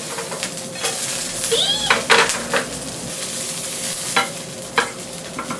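Seafood and spring onion pancake sizzling in a frying pan, with a spatula scraping and knocking against the pan several times as the pancake is worked loose and slid out.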